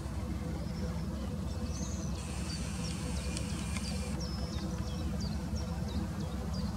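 Outdoor background: a steady low rumble with small birds chirping high. From about four seconds in, a short falling chirp repeats about three times a second. A faint hiss runs between about two and four seconds.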